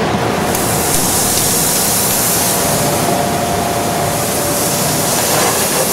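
Cubes of foie gras sizzling as they sear in a hot, dry sauté pan, cooking in their own rendered fat. The steady sizzle gets brighter about half a second in as the cubes go in.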